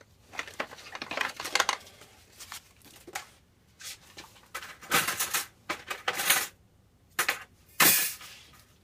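Small metal Erector set parts clinking and rattling as they are handled and rummaged through, in several bursts, the loudest near the end.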